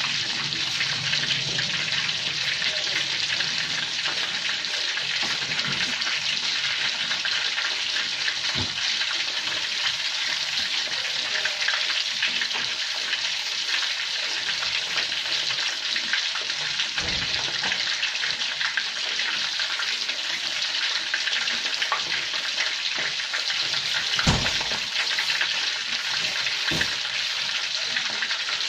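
Chicken frying in hot oil in a pan, with a steady sizzle throughout. A utensil knocks against the pan four times, the loudest about two-thirds of the way through.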